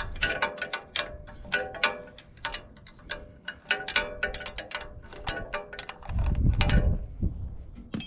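Ratcheting wrench clicking rapidly as it turns a bolt on a tractor's rusty steel light bracket, the clicks ringing faintly in the metal. There is a low rumble about six seconds in.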